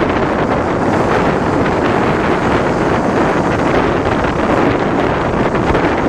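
Steady wind rush buffeting the microphone on a moving motorcycle, with vehicle noise underneath.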